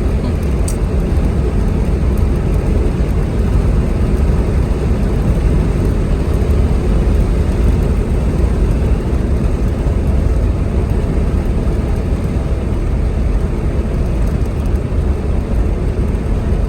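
A car driving at highway speed: steady road and engine noise with a heavy, deep rumble.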